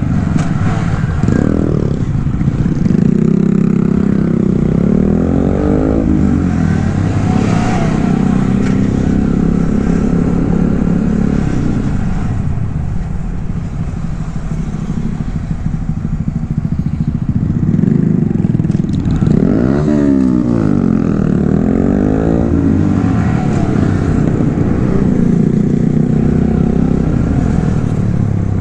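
Several Honda Grom 125 cc single-cylinder mini motorcycles riding in a group at low speed, the engines running steadily. Twice, a few seconds in and again about two-thirds of the way through, they rev up and shift, with several engine pitches rising and falling across one another.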